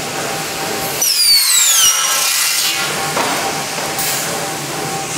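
Automatic aluminium profile cutting saw running with its circular blade cutting the aluminium profile. A high whine falls in pitch for about a second, starting a second in, over a steady machine hum.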